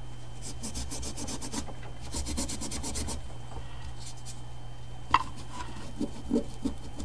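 A small brush scrubbing grime out of the aluminium brake caliper of a 1993 Honda Nighthawk 750, in two runs of quick back-and-forth strokes at about ten a second, then a sharp click about five seconds in.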